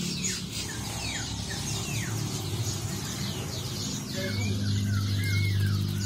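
Many caged birds chirping and calling together: a constant run of quick high chirps, with down-slurred whistles near the start and a short burst of calls a little past the middle. A steady low hum comes in about four seconds in.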